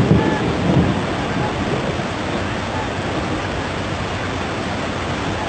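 Fast-flowing floodwater rushing in a steady, dense roar, with heavier low rumbling during the first second.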